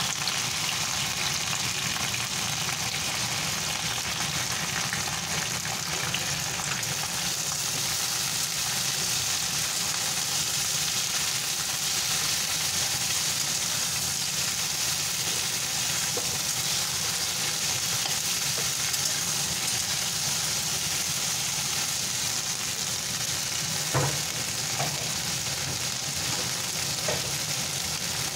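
Chopped okra sizzling as it fries in a steel pan, a steady hiss, with a few short knocks near the end.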